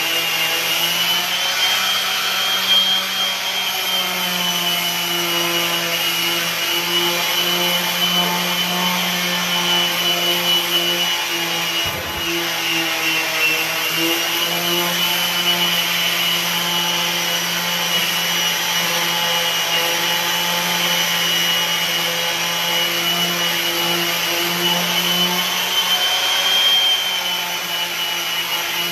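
An electric power tool's motor running continuously while wood is worked, its pitch wavering slightly as the load changes, with a brief dip about twelve seconds in.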